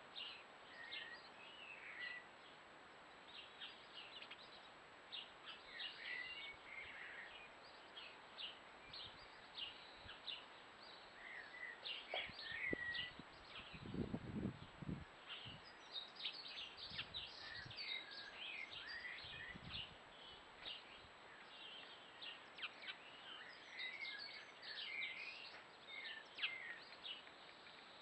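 Faint garden songbirds calling and singing: many short chirps and trills, busiest in the second half, with a few low thumps about halfway through.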